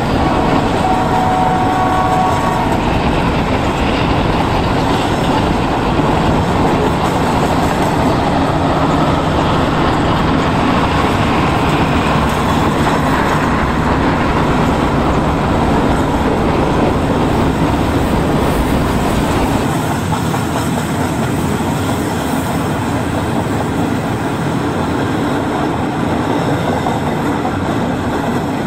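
HO-scale model freight cars rolling past on the track, a steady rumble of wheels on rails that eases slightly about two-thirds of the way through.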